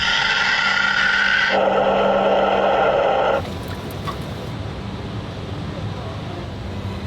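Waterjet cutting machine's high-pressure jet hissing loudly. The hiss changes pitch abruptly about one and a half seconds in, then drops to a quieter, steady rush about three and a half seconds in, over a low steady hum.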